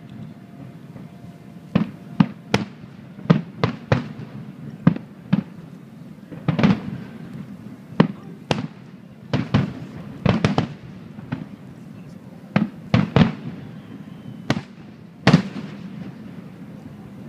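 Aerial fireworks shells bursting in irregular succession: about twenty sharp bangs, some single and some in quick clusters of two or three, over a low continuous rumble.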